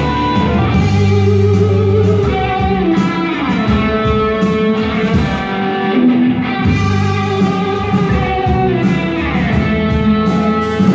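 A rock band playing live, led by guitars over bass.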